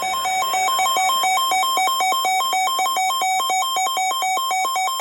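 Loud electronic beeping tones with a buzzy edge, flipping rapidly between a lower and a higher pitch several times a second in an uneven pattern.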